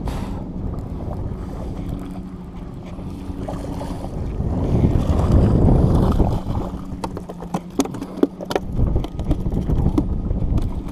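A hooked speckled trout thrashing and splashing at the water's surface beside the boat, loudest about halfway through, over wind buffeting the microphone. A quick run of sharp clicks follows.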